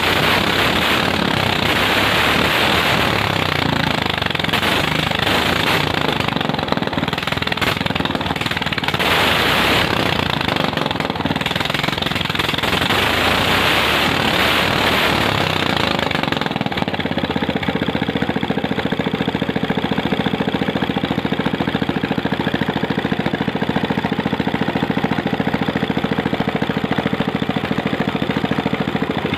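Ryu 460 single-cylinder petrol engine, carburettor set to a semi-racing tune, revved by hand at the throttle, its speed rising and falling several times. About sixteen seconds in it drops to a steady idle.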